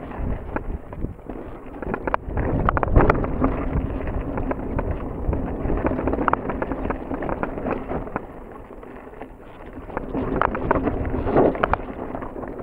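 Mountain bike rolling fast down a dirt trail: tyres running over dirt with the frame, chain and suspension rattling in many small knocks over bumps, and wind buffeting the camera microphone.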